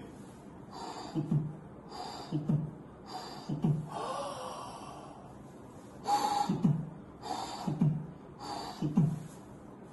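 Demonstration of a tricuspid regurgitation murmur: a regular heartbeat-like sound about once a second, three beats, a long breath drawn in, then three louder beats. The murmur grows louder with inspiration (Carvallo's sign).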